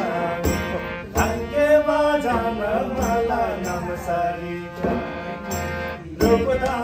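A Tamang folk song: voices singing over a harmonium's steady held chords, with damphu frame-drum strikes about every second.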